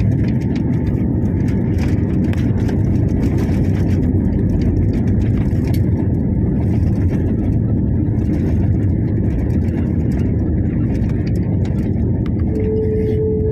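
Jet airliner cabin noise during the landing roll: a steady, loud rumble of engines and wheels on the runway with the spoilers raised as the plane slows. A single steady tone starts near the end.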